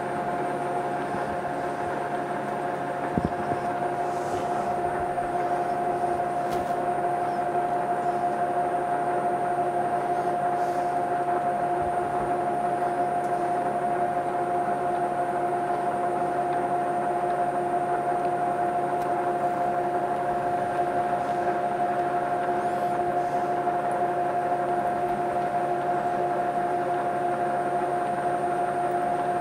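Metal lathe running steadily at slow speed with a constant gear whine, its carriage feeding along under the leadscrew as a single-point tool cuts an ACME thread on a steel shaft. A short click about three seconds in.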